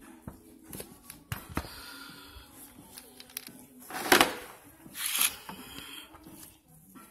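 Scattered clicks and knocks of a phone camera being handled and set down, with two short hissing bursts about four and five seconds in.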